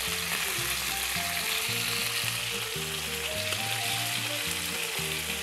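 Chunks of meat sizzling steadily as they fry in hot lard in a frying pan.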